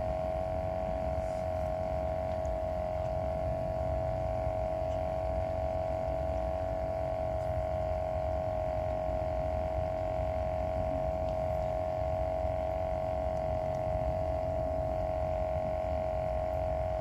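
A steady hum held at one unchanging mid pitch over a low rumble, from an unseen motor or machine.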